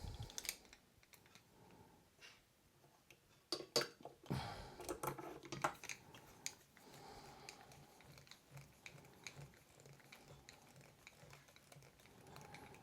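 Faint clicks and light taps of small screws and plastic parts being handled and driven in with a small screwdriver, a cluster of them about four to six seconds in.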